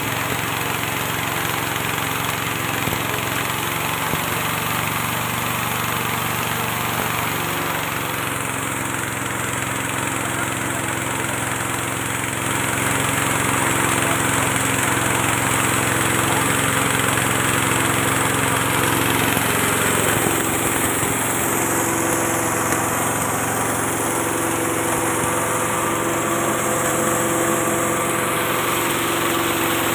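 A small engine runs steadily, driving a rice-bran and grass-chopping machine. The hum changes about 8 seconds in and gets louder about 12 seconds in.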